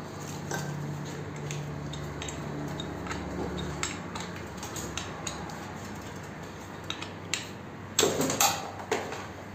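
Small metal clicks and clinks as a copper cable lug and a tubular box spanner are handled and worked together, with a louder metallic clatter about eight seconds in.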